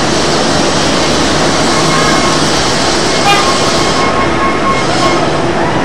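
Articulated tram approaching along street rails over steady street noise. From about two seconds in, faint steady high tones from the tram come through, with a short tone just past three seconds.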